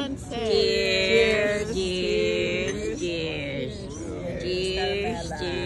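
Several voices chanting together in long, held notes, a drawn-out group toast that breaks into about three sustained phrases.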